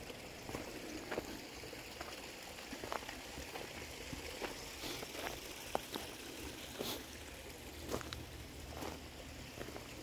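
Footsteps crunching on a dry, leaf-littered dirt trail: faint irregular crackles roughly once a second over a steady outdoor hiss.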